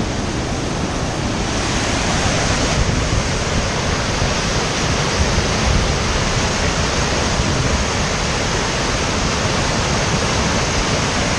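Steady roar of the waterfall at Devil's Kettle on the Brule River: a loud, even rush of falling water without a break.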